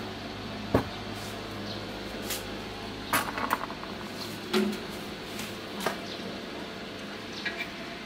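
Metal ladle knocking and scraping against the inside of a large stainless steel soup pot, in a series of separate clinks, the sharpest about a second in and a cluster around the middle.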